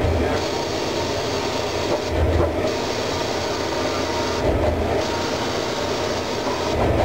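Haas SL-10 CNC lathe drilling into a spinning composite-wood rod with a twist drill: a steady rough cutting noise over the machine's hum. The cutting noise breaks off briefly about every two and a half seconds as the drill pecks in and out of the hole.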